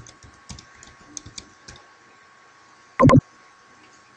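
Typing on a computer keyboard: a quick run of key clicks in the first two seconds as a word is typed. About three seconds in comes a short, loud burst, the loudest sound here.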